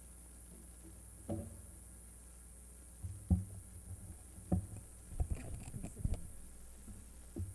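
Scattered dull thumps and knocks: single ones about a second in, at about three seconds and about four and a half seconds in, then a cluster of small bumps and rustles, all over a low steady hum.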